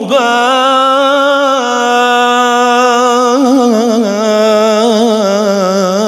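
A man singing a religious supplication (ibtihal) in Arabic, drawing out one syllable in a long melisma: a note held steady, then ornamented with quick turns and settling lower about four seconds in.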